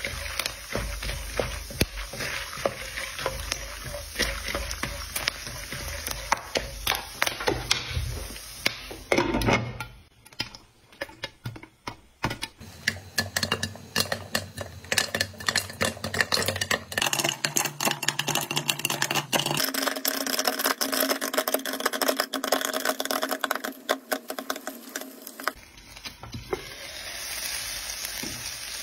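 Popcorn kernels sizzling in hot oil in a pan while a wooden spatula stirs and scrapes them. From about twelve seconds in, a dense run of sharp pops over the sizzle as the kernels burst under a glass lid.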